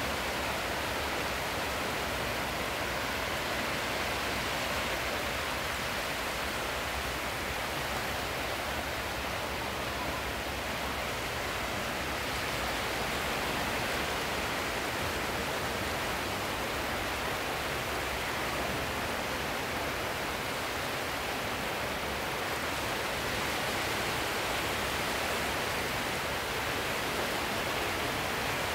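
A steady, even rushing noise with no separate events, swelling and easing slightly now and then.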